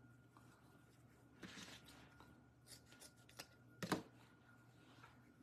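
Faint rustling of burlap ribbon being handled and folded, with one short sharp click about four seconds in.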